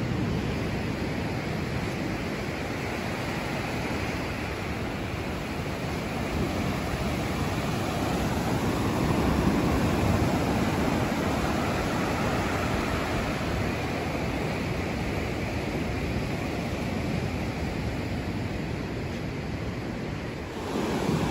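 Mediterranean surf washing up a sandy beach: a steady hiss of waves that swells about halfway through, with some low wind rumble on the microphone.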